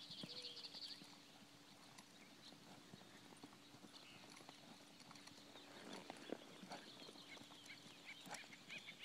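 Faint hoofbeats of a ridden horse, with a few scattered knocks, under a low steady hum.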